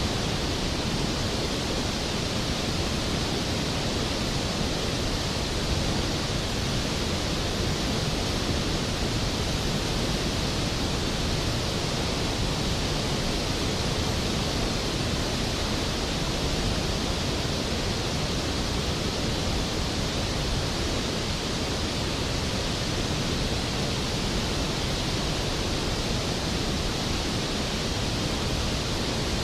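Skógafoss waterfall's heavy plunging water: a steady, dense rushing roar across all pitches, unchanging throughout.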